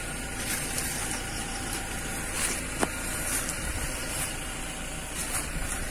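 A motor vehicle's engine running steadily under an even rushing noise, with a few light clicks.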